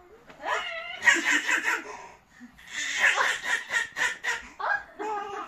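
A young child laughing and giggling in two long, high-pitched bouts, with shorter giggles near the end.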